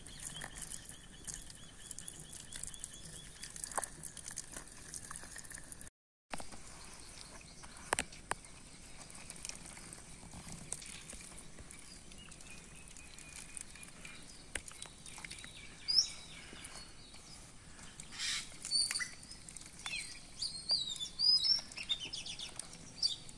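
Hands squishing and rubbing mint masala paste over a whole raw chicken on a banana leaf, with a few soft clicks and taps. Birds chirp in the background, more often near the end.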